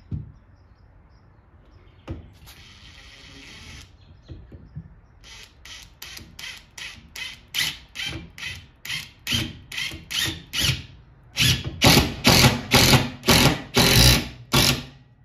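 Cordless drill driving a screw into wooden 2x4 blocking. It gives a short steady run about two seconds in, then from about five seconds in a string of short pulses, about three a second, that grow louder toward the end.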